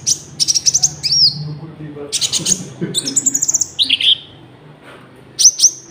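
Common iora singing a fast run of high chirps and short trills in bursts, its song filled with cricket-like notes. A pause of about a second comes near the end, then two more sharp notes.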